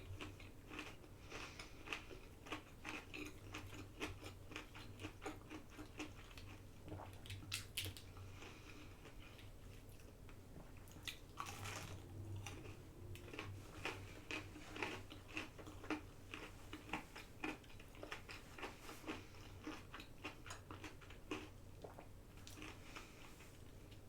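A person chewing and biting food close to the microphone, faint and irregular, with small crunches and wet mouth clicks.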